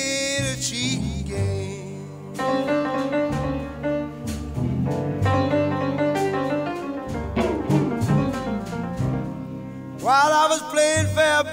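Soundtrack music: a slow song with a sung line at the start and again near the end, and an instrumental passage in between.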